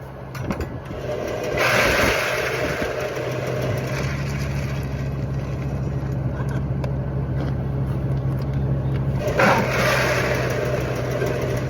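Feed truck engine running at a steady low hum, with two louder stretches of rushing noise, one about two seconds in and one near the end.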